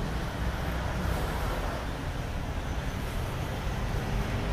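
Steady low rumble of background road traffic, with no distinct events.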